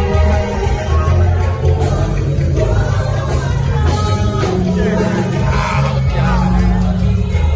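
Church worship music: voices singing over instruments with a steady bass line.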